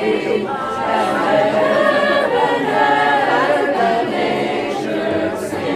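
A choir singing, several voices together holding sustained notes, with no instruments standing out.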